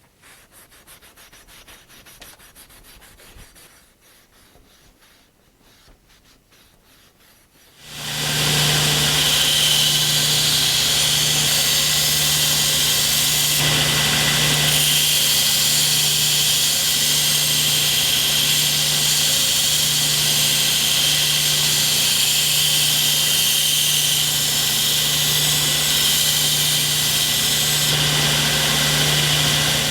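Faint hand rubbing at first, typical of steel wool burnishing a wooden handle. About eight seconds in, a small electric belt sharpener starts suddenly and runs steadily with a constant motor hum and abrasive hiss as a knife blade is sharpened on it.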